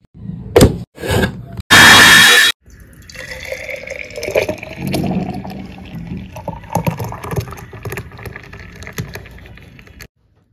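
Ice clunks twice into a steel mixer-grinder jar, then the grinder runs in a loud burst of about a second. After that, a thick milkshake pours and splashes into a glass mug for several seconds and stops just before the end.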